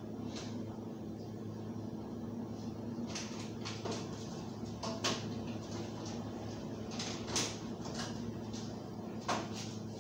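Knocks and clatters of cupboard doors and kitchen things being handled, the sharpest about five, seven and nine seconds in, over a steady low hum.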